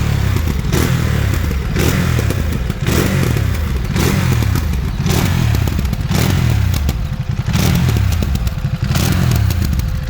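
2021 Ducati Monster 937's 937 cc Testastretta V-twin on its stock exhaust being blipped over and over, about once a second, the revs rising sharply and falling back each time, with pops as the throttle closes.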